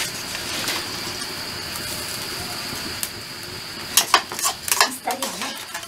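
Food sizzling in a hot wok over a wood fire, a steady frying hiss. About four seconds in, a quick run of clicks and knocks as a metal spoon scrapes spoonfuls from a bowl into the wok.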